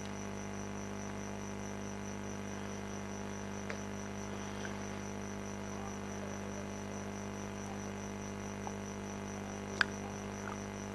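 Steady electrical mains hum with a faint high-pitched whine above it, and a single sharp click near the end.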